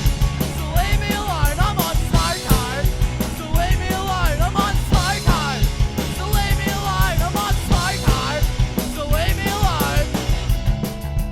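Fast punk rock song with drums, bass and a singing voice; the singing stops about ten seconds in while the band plays on.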